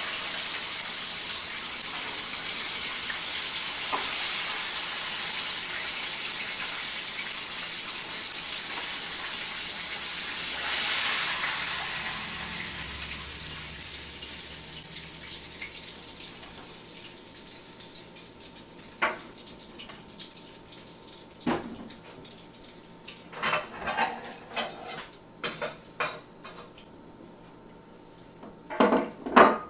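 Chicken frying in hot oil in a pot, a steady sizzle that swells briefly about a third of the way in and then dies away over several seconds. After that, scattered clinks and knocks of utensils and dishes.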